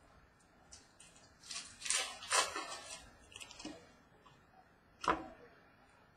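Trading card packs and cards being handled on a table: crinkling and rustling for a second or two about 1.5 seconds in, a few light clicks, and one sharp tap about five seconds in.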